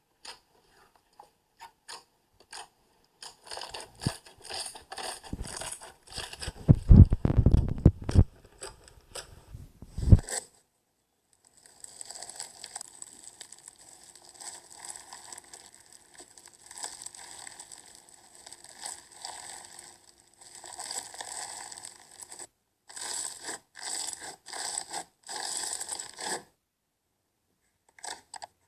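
Slime handled by hand close to the microphone: scattered small clicks, then dense crackling with a heavier, louder press a few seconds in. After a short pause comes a long run of steady crackling, and it ends in short bursts of crackles.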